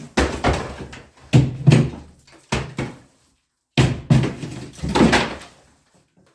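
Repeated heavy blows against a kitchen wall being demolished: about six loud thudding strikes, each trailing off, with a short break a little before the middle.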